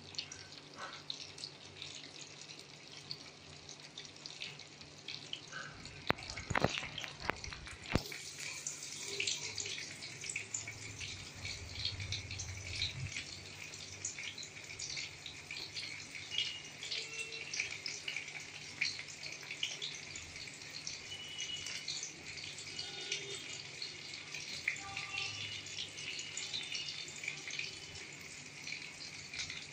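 Oil sizzling and crackling steadily around a large whole spice-coated fish frying in a tilted kadai, with a few knocks about six to eight seconds in.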